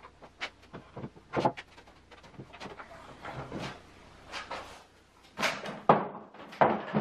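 Wooden knocks and clunks as 2x4 rails with wooden brackets are set down onto the leg frames of a knock-down table and fitted in place, followed by a few heavier knocks near the end as a person's weight comes onto the frame.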